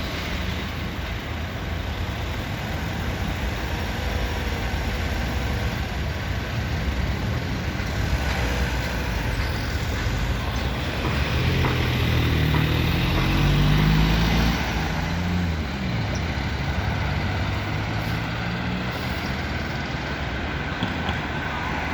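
Road traffic noise with the low rumble of heavy engines. A large vehicle, such as a truck, grows louder and shifts pitch about twelve to fifteen seconds in, then fades back into the steady traffic.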